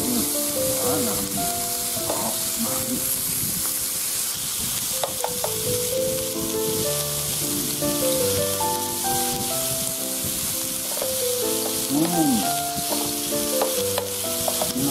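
Beef slices and shrimp sizzling on an indoor grill plate: a steady hiss. Background music with a simple stepping melody plays underneath.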